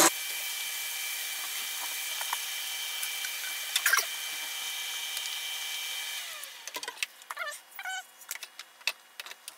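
Electric blender running steadily, pureeing canned tomatoes, then its motor winding down about six seconds in. A few light taps and rattles follow.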